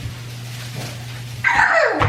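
A young child's voice breaking out loud and high about one and a half seconds in, falling in pitch, over a steady low hum.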